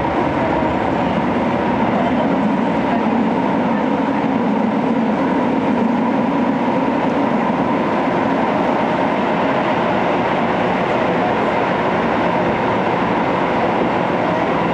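A 205 series electric train running at speed through a tunnel, heard from inside the car: a steady, even rumble of wheels and running gear, with a faint steady whine.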